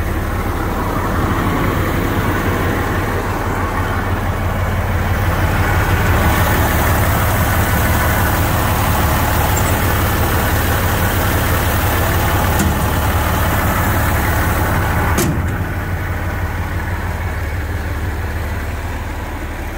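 Diesel engine of a Mitsubishi MG300 road grader idling steadily, louder for several seconds in the middle as the open engine bay is passed. A single sharp click about fifteen seconds in.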